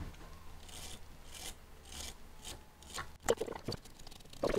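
Soft, repeated rubbing and scraping strokes from hands and pliers working on the metal hot end of a 3D printer, with a few sharp clicks about three seconds in and again near the end.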